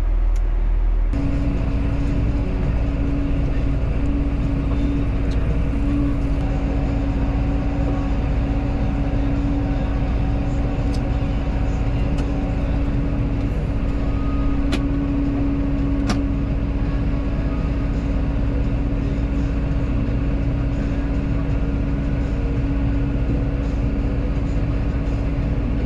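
Diesel engine of a farm vehicle running steadily at idle, a constant hum with one strong steady tone and a low rumble underneath. A few faint clicks sound around the middle.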